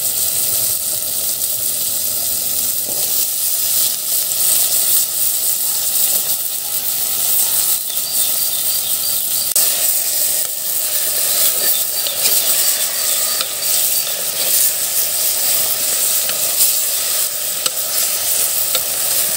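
Drumstick, brinjal and potato pieces sizzling in hot oil and fried onion-tomato masala in a clay pot, stirred with a spatula that scrapes and clacks against the pot many times.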